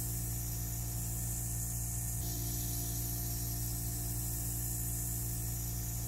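A steady machine hum with an even hiss above it, unchanging throughout.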